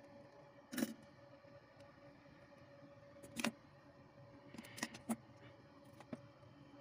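A few sharp knocks and clicks of small hand tools and parts being set down and picked up on a workbench cutting mat: the loudest about a second in, another around three and a half seconds, then a quick cluster of light clicks about five seconds in. A faint steady hum runs underneath.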